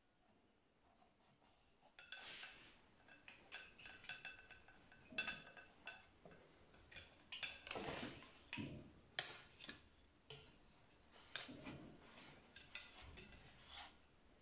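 Wooden rods and a wooden weaving sword clacking and scraping against the cotton warp of a hand loom as the weaver picks up threads and works the sword through the shed. The sound is an irregular run of sharp taps and short scrapes starting about two seconds in.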